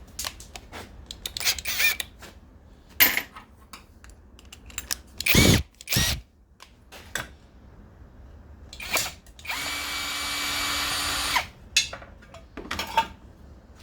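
Scattered clicks and knocks of tools and parts being handled, then a power driver runs steadily for about two seconds, stopping abruptly, as a screw is backed out.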